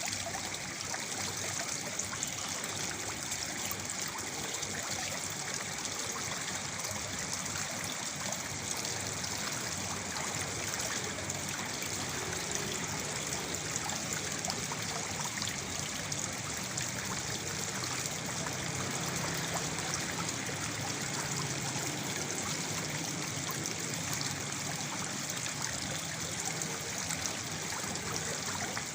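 Waterfall: water falling and splashing into a pool in a steady, unbroken rush with a trickling edge.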